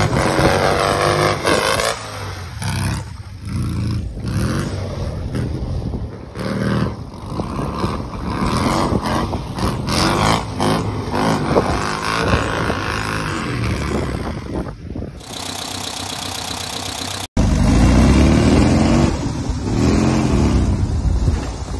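Rail buggy's engine revving up and down repeatedly as it is driven hard. The sound breaks off suddenly about three-quarters of the way through and resumes at once, still revving.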